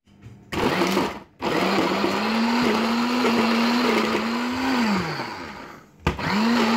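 Countertop blender chopping bread into crumbs, run in pulses: a brief spin near the start, a longer run whose pitch wavers under the load and winds down about five seconds in, then a restart near the end. The motor meets a little resistance from the bread.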